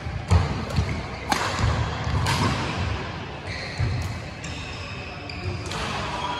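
Badminton rally: sharp racket hits on the shuttlecock and thuds of players' feet on the court, a handful of sharp strikes in the first two and a half seconds, echoing in a large hall.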